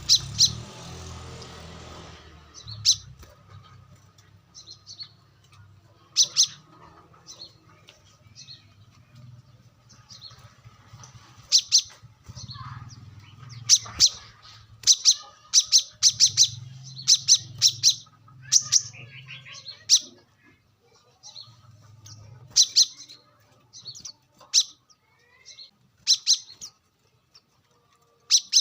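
Brown-throated sunbird calling: short, sharp, high chirps, some alone and some in quick runs, with irregular pauses between them.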